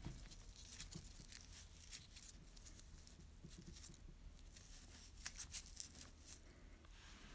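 Faint, irregular scratching and rustling of fingers pressing and rubbing a cardboard ring against a terrycloth towel, in small clusters with a louder patch about five seconds in.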